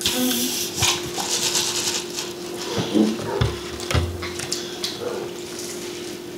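Sounds of eating and drinking at a table: chewing and sipping from foam cups, with light knocks and rustles of cups and takeout containers, over a steady low hum.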